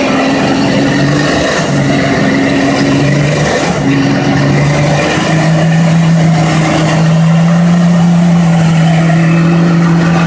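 Nissan Patrol 4x4 on 35-inch tyres, its engine revving hard under load as it claws up out of a deep mud rut. The revs rise and fall in steps for about the first five seconds, then are held high and steady.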